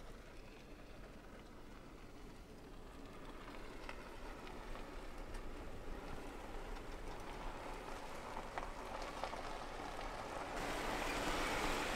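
Jeep Wrangler JK rolling along a rough dirt trail: a crackling tyre-and-trail noise over a low hum, growing steadily louder and brighter toward the end.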